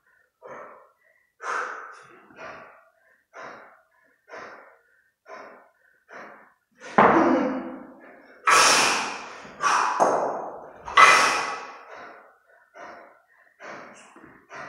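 Hard, rhythmic breathing of a kettlebell lifter holding two 32 kg kettlebells in the rack position, a sharp breath about once a second. About halfway through, as the bells are jerked overhead and dropped back to the chest, come several much louder forceful exhalations with heavy thuds.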